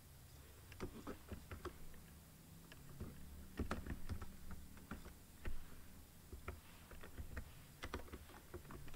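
Computer keyboard being typed on: irregular, quick keystrokes, some in short runs, over a faint low hum.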